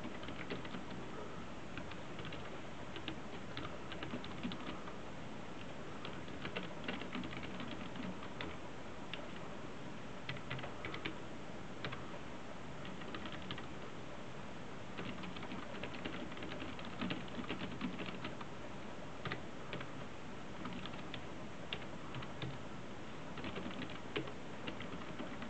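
Typing on a Reudo RBK-2200BTi folding Bluetooth keyboard: runs of quick key clicks in irregular bursts with short pauses, over a steady background hiss.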